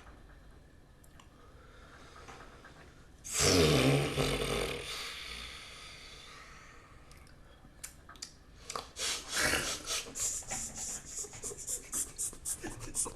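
A person's loud, sudden breath or exhale about three seconds in, fading away, then a long run of quick, breathy bursts near the end.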